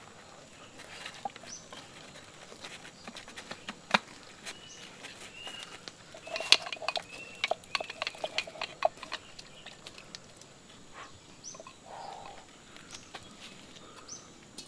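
Light clicks and taps of fingers working chopped spices in a coconut-shell bowl, most of them in a quick flurry about halfway through. Faint bird chirps in the background.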